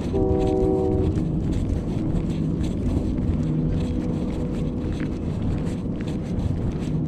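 A horn sounds once near the start, a chord of several notes lasting about a second, over a steady rumble of passing traffic and wind on the microphone.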